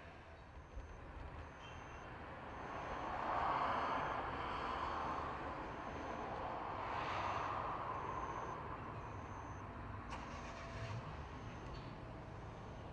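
Road vehicles passing nearby, their noise swelling twice and fading. Throughout, a thin high-pitched beep repeats about once a second.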